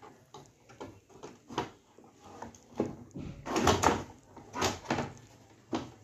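Knocks and clatter of a metal-backed LCD panel being handled and set down onto the open TV chassis, the loudest run of knocks about three and a half seconds in.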